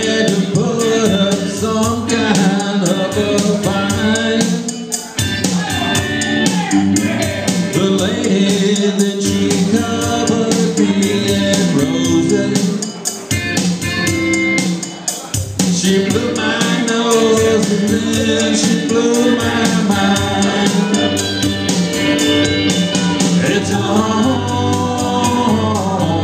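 A man singing into a handheld microphone over music with a steady drum beat, with brief breaks between phrases.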